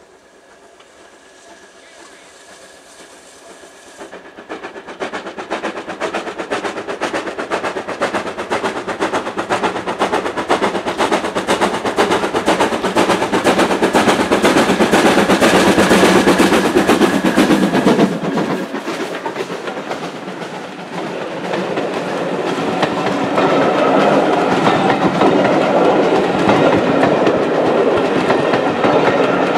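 Steam locomotive 9351 approaching and passing with a train of coaches, working steam. Its exhaust beats grow louder over the first dozen seconds and peak as it goes by. About two-thirds of the way in the engine has passed, and the carriages' wheels roll by on the rails.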